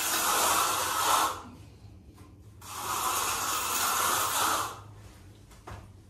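Hand trowel scraping across the surface of freshly poured, still-wet concrete in two long, steady strokes, followed by a couple of faint clicks near the end.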